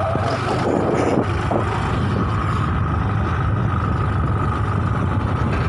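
Motorcycle engine running steadily while riding, mixed with wind and road noise on the microphone.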